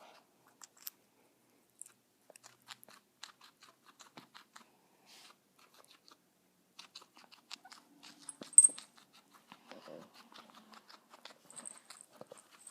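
Guinea pig chewing: a run of small irregular crunching clicks. About two-thirds of the way in there is one brief, sharp high-pitched sound, and a few short high sounds come near the end.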